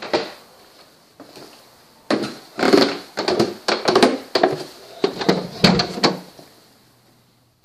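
A quick run of wooden knocks and thumps, two or three a second, from about two seconds in to about six seconds in, with a door being handled.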